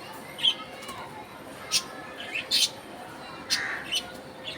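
Budgerigars chirping: about five short, sharp chirps at irregular intervals over faint background warbling.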